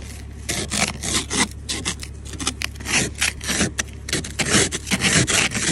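Plastic ice scraper scraping frost off a car windshield in quick repeated strokes, about three a second, over a steady low hum.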